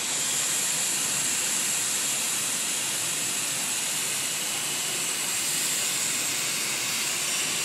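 Hot-air plastic welding gun blowing compressed air through its nozzle with a steady high hiss while welding polypropylene.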